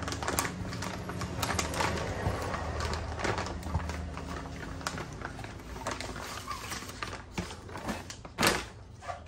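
Pink plastic bag crinkling and rustling among packing peanuts in a cardboard box as a gauge cluster is unwrapped and lifted out, with irregular crackles throughout and one louder swish near the end.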